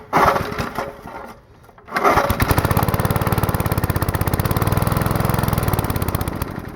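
Old 2-horsepower small engine with a draw-up (suction-feed) carburetor being pull-started. After a brief noisy rattle it catches about two seconds in, runs with an even rapid pulse for a few seconds, then dies out near the end. This is typical of these tank-fed carburetors, which are hard to start and keep primed.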